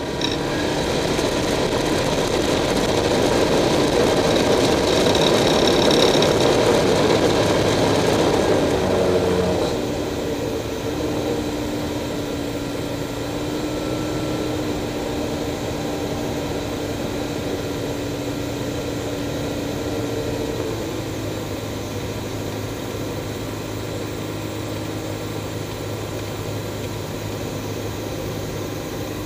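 Light aircraft's piston engine heard from inside the cockpit, running at higher power and louder for about the first nine seconds, then throttled back and running quieter and steadier for the rest.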